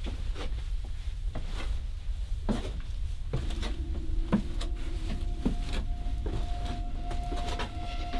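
Scattered wooden knocks and creaks of footsteps and bumps on old floorboards and door frames, over a steady low handling rumble. About halfway through, a steady low hum comes in and holds.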